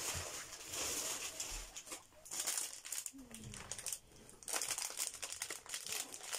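Plastic packaging crinkling and rustling in irregular bursts as bags of sweets are handled, including a plastic bag of chewy candies.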